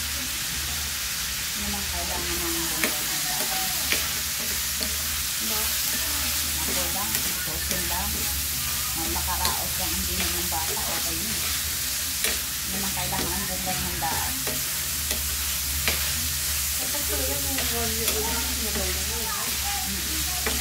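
Diced pork frying in a nonstick pan with a steady sizzle, stirred with a spatula that scrapes and clicks sharply against the pan every second or two.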